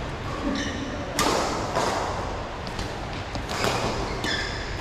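Badminton rally: sharp cracks of racket strings hitting the shuttlecock, the loudest about a second in and another past three and a half seconds, with lighter hits and shoe squeaks on the court floor between them.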